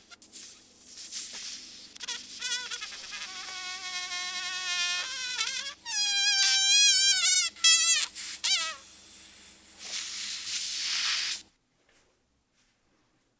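Air squealing out of a deflating blow-up doll: a high, wavering whine that slides up and down in pitch, loudest in the middle, over a low steady hum, cut off suddenly near the end.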